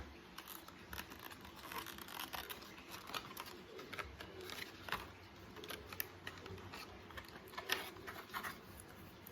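Hands handling and opening the packaging of an external hard drive: irregular light scratches, rustles and small clicks.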